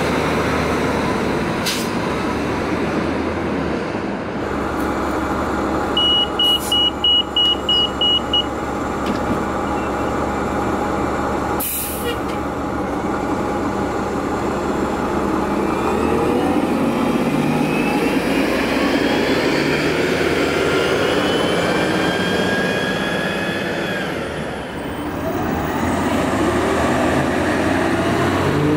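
City transit buses running and pulling away, the engine drone steady. A few seconds in there is a run of about eight quick high beeps, a sharp hiss comes near the middle, and later a whine rises in pitch as a bus accelerates.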